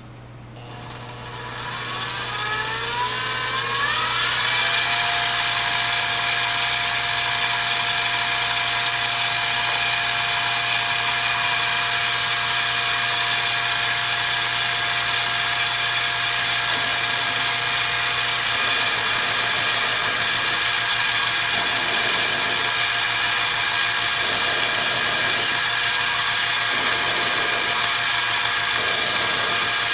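Sieg X2 mini milling machine running with an end mill cutting a small metal part, a high machine whine. Over the first four seconds it grows louder and rises in pitch, then it holds steady.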